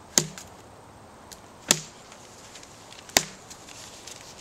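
Axe chopping into a birch log: three sharp strikes about a second and a half apart.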